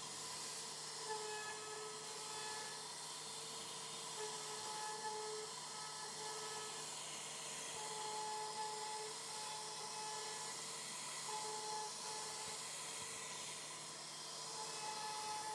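CNC router carving wood: a steady high hiss from the spindle and cutter, with faint whining tones that come and go at a few different pitches.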